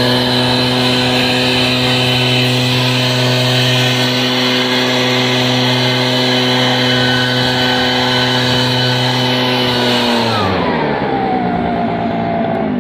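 Echo leaf blower's two-stroke engine running at full throttle with a steady fan rush. About ten seconds in the throttle is released and the engine speed falls away toward idle.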